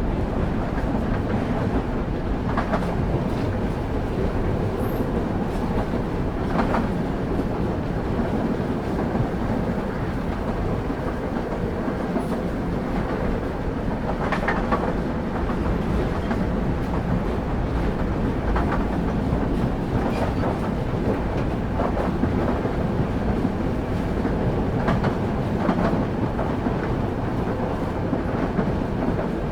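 Railway carriage wheels running on the track, heard from on board: a steady low rumble with occasional clicks as the wheels pass rail joints.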